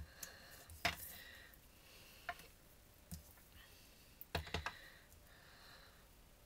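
Wood-mounted rubber stamp being tapped on an ink pad and pressed onto cardstock on the desk: about six sharp, separate knocks and clicks, two of them close together past the middle.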